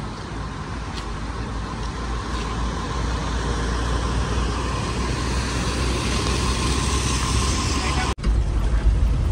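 Truck engine running under way with steady road noise, slowly growing louder. About eight seconds in the sound drops out for an instant and comes back louder.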